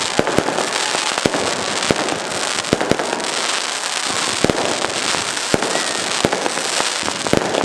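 Fireworks going off: a dense crackling hiss with sharp bangs coming irregularly, several a second at times, and a short whistle near the end.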